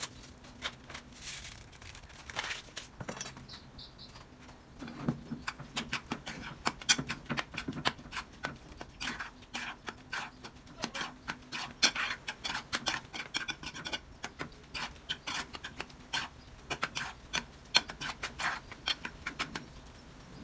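Metal spoon scraping and clinking against an aluminium pot while stirring macaroni and cheese, a fast, irregular run of scrapes and knocks that picks up about five seconds in.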